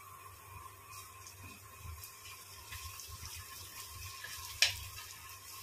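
Chopped onions, green chillies and ginger-garlic paste frying in oil in a stainless steel kadai, a soft steady sizzle with faint crackles as a metal spoon stirs them. A single sharp clink of the spoon against the pan about four and a half seconds in.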